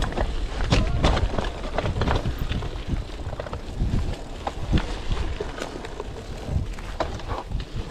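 Rigid cyclocross bike rattling over a rough dirt trail: irregular knocks and clicks from the frame and parts as the tyres hit stones and roots, over a constant low rumble of tyre and wind noise on the handlebar-mounted camera.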